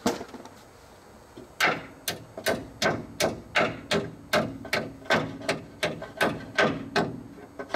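Hammer tapping a part into place on a truck's front brake assembly: an even run of sharp blows, nearly three a second, starting about a second and a half in, each with a short ring after it.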